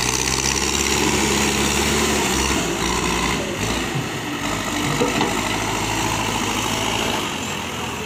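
Diesel engine of a Manitou TLB 740S backhoe loader working under load while it carries a bucket of stone blocks and lifts its front loader arm. The engine's note holds steady, then changes about two and a half seconds in, and the sound eases off slightly near the end.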